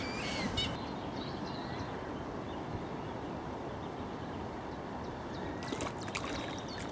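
Steady outdoor hiss at the water's edge, with a few faint high chirps just after the start and again near the end.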